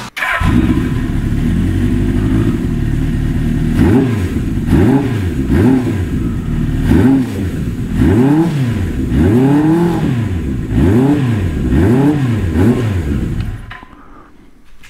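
Suzuki Katana 750's carburetted inline-four engine running, then revved again and again, about once a second, each rev rising and falling back. The owner says the carburettor setting is a little lean. The engine sound drops away near the end.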